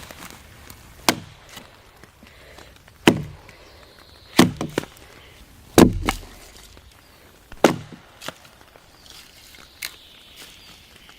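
Wood being chopped at camp: about six sharp, irregular blade strikes into wood, spaced a second and a half to two seconds apart, some followed by a lighter second knock.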